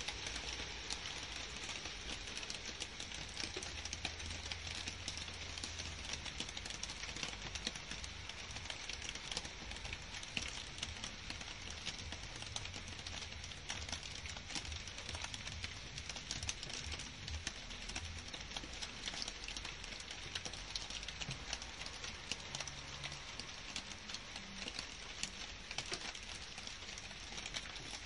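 Steady rain falling on leafy garden plants and trees: an even hiss dotted with the fine ticks of individual drops striking leaves.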